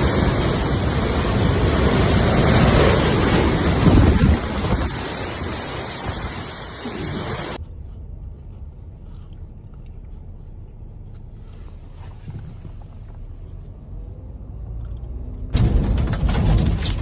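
Strong thunderstorm wind gusting and buffeting the microphone as a loud, rushing noise. About seven seconds in it drops to a much quieter low rumble, and the loud wind noise returns near the end.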